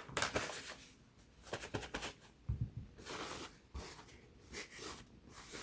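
Handling noises at a cleaning bench: irregular rustling and scraping with a few light clicks and dull knocks as gun-cleaning tools and paper are picked up and set down.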